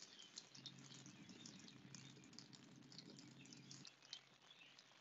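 Near silence: faint riverside ambience with scattered light ticks and chirps, and a low steady hum from about half a second in that stops just before the end.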